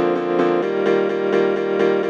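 Background music: an upbeat piano or keyboard tune with a steady beat and chords changing about every second.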